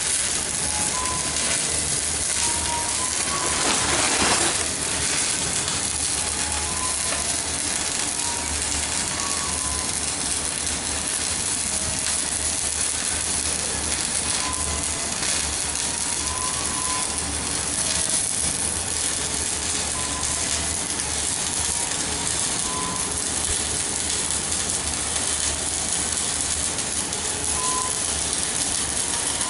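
Steady crackling hiss of a 4 mm stick-welding electrode burning in the arc of a CNR 120 inverter welder, surging louder briefly about four seconds in.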